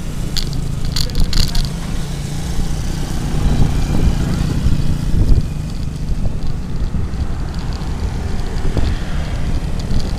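Wind buffeting the microphone of a handlebar-mounted camera on a moving bicycle, a steady low rumble mixed with road noise, while motorcycles ride close by. A few light clicks come in the first second and a half.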